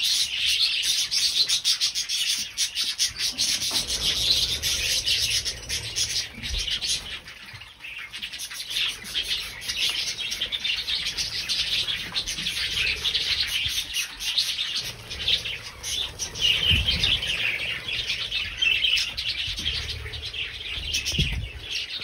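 Many budgerigars chirping and chattering in an aviary, a dense continuous twittering, with a few low bumps from handling.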